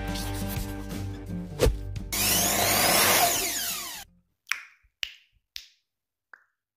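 Blues-rock guitar backing music plays for about two seconds and ends on a sharp hit. A power saw sound effect follows for about two seconds and cuts off suddenly, then four short clicks fade away.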